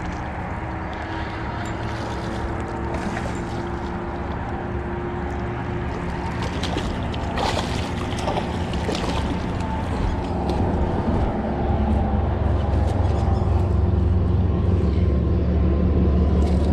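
A motor engine's steady low drone with a few steady tones, growing louder in the second half. A cluster of clicks and splashing crackle comes about midway.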